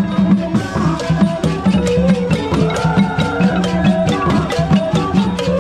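Traditional-style music with a steady drumbeat and a pitched melody line over it.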